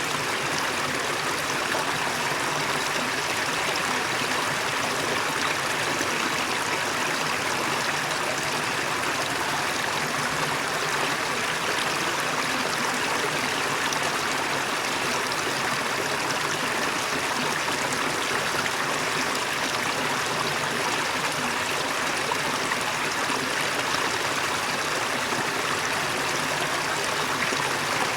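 Waterfall: falling water splashing and rushing as one steady, even hiss.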